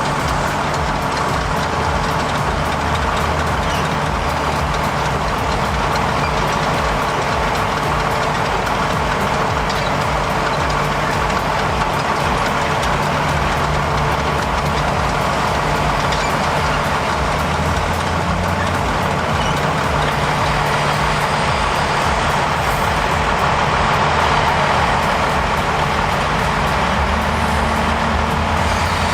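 Heavy diesel machinery engine running steadily at a constant level, with no sudden events standing out.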